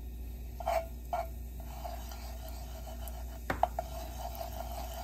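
Metal spoon stirring and scraping turmeric powder around in hot oil in a nonstick pan, with a couple of sharp clinks of the spoon against the pan about three and a half seconds in.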